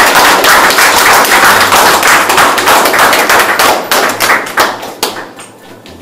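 Applause from a small audience, many hands clapping at once, thinning out and dying away near the end.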